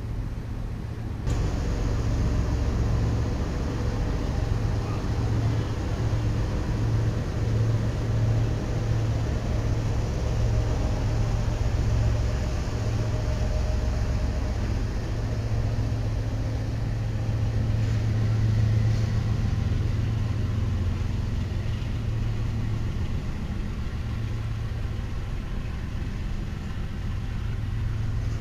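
Railroad train running by, its diesel locomotive engines giving a steady low rumble. The sound changes abruptly about a second in.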